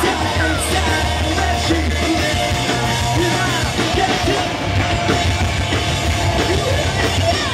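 Live rock band playing loud, with drums and bass, and a singer's vocals over the top.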